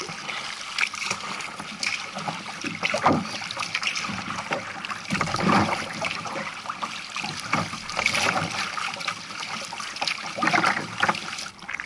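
Choppy sea water splashing and slapping against the bow of a moving sea kayak, with irregular louder splashes every second or two.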